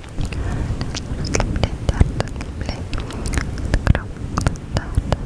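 ASMR mouth sounds close to the microphone: many quick wet clicks and smacks of lips and tongue over a low rumble.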